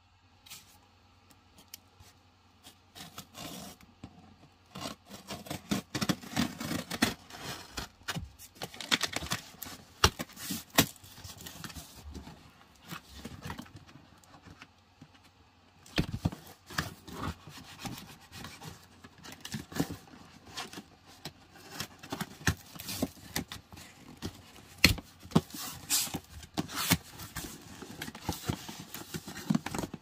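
Scissors cutting packing tape on a cardboard shipping box, with cardboard scraping and rubbing and irregular sharp clicks as the flaps are worked open. It starts a few seconds in and comes in two busy stretches with a quieter pause between.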